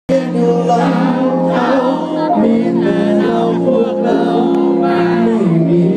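Male singer singing live into a microphone over amplified music, heard through the concert's PA system.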